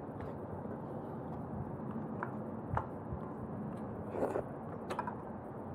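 Quiet close-miked eating sounds: a person chewing a mouthful of roast chicken, with a few small mouth clicks and smacks over a steady background hiss.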